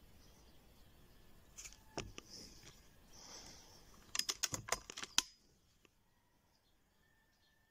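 A string of sharp mechanical clicks from handling an air rifle and its scope: one click about two seconds in, then a quick run of about eight near the middle, then quiet.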